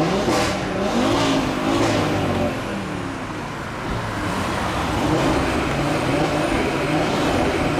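Audi RS3 8V's turbocharged five-cylinder engine and exhaust accelerating, its note climbing in pitch in short steps over the first two seconds, then running on more steadily.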